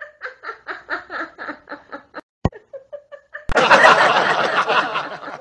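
Laughter: quick rhythmic 'ha-ha' pulses, about five a second, then about three and a half seconds in a louder, fuller stretch of laughing that breaks off shortly before the end.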